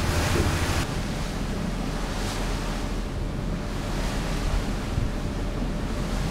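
Wind buffeting the microphone on an open boat deck, over a low rumble of the boat and water. About a second in the sound cuts suddenly to a quieter, steady rush with a low hum.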